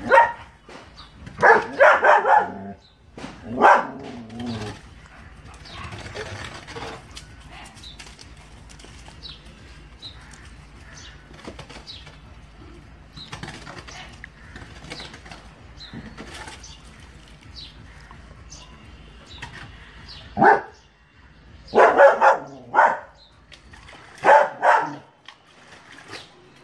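German Shepherd barking in short, loud bursts: a few barks near the start, a long lull, then another run of barks in the last six seconds.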